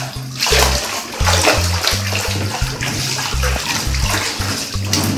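Bath water splashing and sloshing as hands churn and slap it in a tub, with a bouncy bass-line music track underneath.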